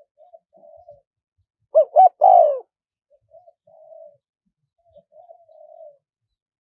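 Spotted dove cooing: one loud phrase of two short notes and a longer third note about two seconds in, with fainter coo phrases before and after it.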